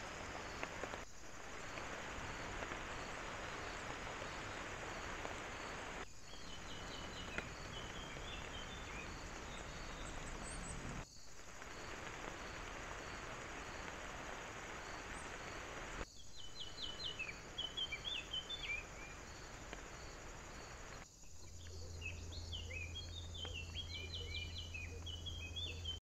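Small wild birds singing in short phrases of quick repeated high notes over a steady hiss, heard through a trail camera's microphone. The hiss breaks off sharply about every five seconds where separate clips are joined, and a low hum comes in near the end.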